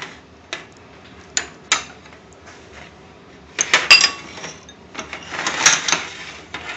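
Long metal tandoor skewer clicking and scraping against a glass bowl as marinated paneer pieces are threaded onto it: a few sharp clicks, a loud cluster of ringing clicks about four seconds in, then a longer scrape near the end.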